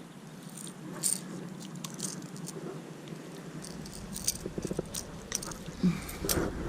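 Fishing tackle being worked while a bass of about 2 pounds is reeled in and landed: scattered light clicks and metallic rattles, with a sharper click near the end.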